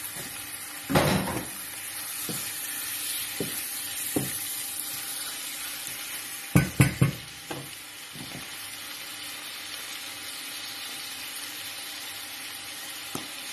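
Beef cubes frying with onion, garlic and chili in a nonstick pan, giving a steady sizzle. A silicone spatula stirs them, with louder knocks and scrapes against the pan about a second in and again around six to seven seconds in.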